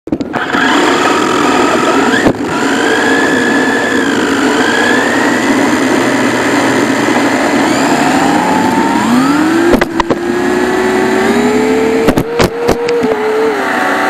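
Onboard sound of a WLtoys K989 remote-control car driving fast: its small electric motor whines up and down in pitch over loud tyre and wind noise. Several sharp knocks come through, most of them near the end as the car ends up on its side in the grass.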